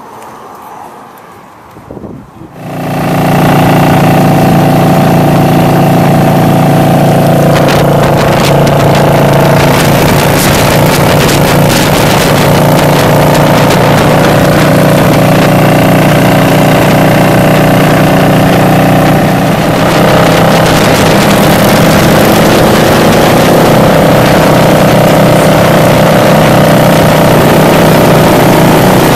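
Motorcycle riding at highway speed: a steady engine drone buried in heavy wind noise on the microphone. It comes in loud about three seconds in, after a quieter moment, and the engine pitch shifts slightly a couple of times.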